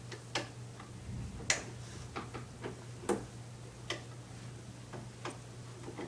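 Light, irregular clicks and taps of hard parts being handled while a bolt is worked at a hole on a lawnmower's frame, not threading in. About a dozen sharp ticks at uneven intervals over a steady low hum.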